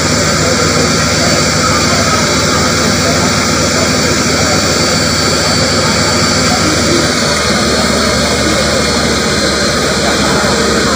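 Fire hose spraying a high-pressure water jet with its pump running: a steady, loud rushing roar with a low engine-like hum under it that drops slightly about seven seconds in.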